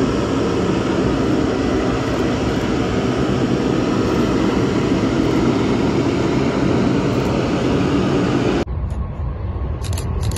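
Twin-engine Boeing 777 jet engines running steadily as the airliner taxis past. Near the end the sound cuts suddenly to the deeper rumble of another 777 at takeoff power on its takeoff roll.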